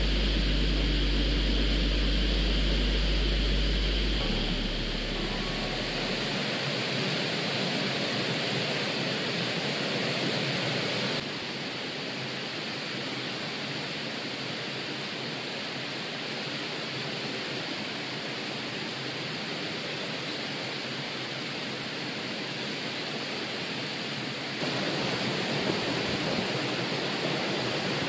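A small mountain stream running, a steady rushing of water. A low hum with a few steady tones sits under it at first and fades out about five seconds in. The rushing drops in level about eleven seconds in and comes back louder near the end.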